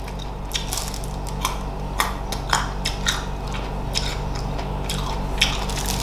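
Close-up chewing of crunchy food, Thai-sauce chicken feet with crisp green mango: irregular crisp crunches and wet mouth clicks over a steady low hum.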